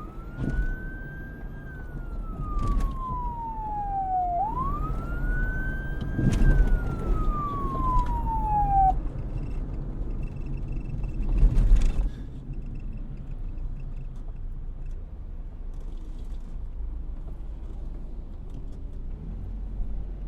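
Emergency vehicle siren wailing: two slow cycles, each rising quickly and falling slowly in pitch, then the siren stops about nine seconds in. A steady low rumble of traffic runs under it, with a loud noisy swell at about eleven seconds, and everything cuts off abruptly at the end.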